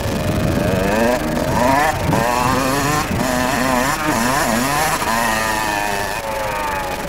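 Kawasaki KX 60 two-stroke dirt bike engine revving up and down as it is ridden, its pitch climbing and dropping several times, then holding higher toward the end.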